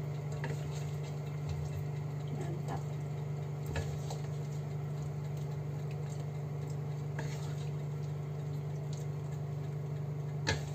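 A metal spatula scrapes and clicks against a stainless steel wok and a ceramic plate as saucy braised pork ribs are spooned out, with soft wet squishes. There is a sharper knock about four seconds in and another near the end, over a steady low hum.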